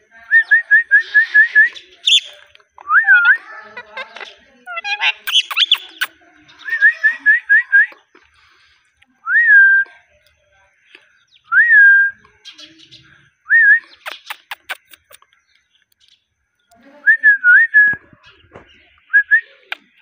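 Indian ringneck parrot whistling and chirping: a quick run of about seven short chirps at the start, then single rising whistles every couple of seconds, with scratchy chatter and a few clicks between them.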